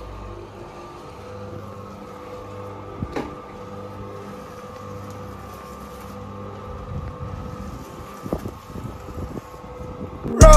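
Steady hum of a small electric cement mixer running, with a couple of faint knocks.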